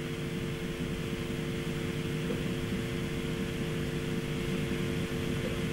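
Steady hiss with a faint, even hum underneath from an open live audio link that carries no voice, while the reporter has not yet answered.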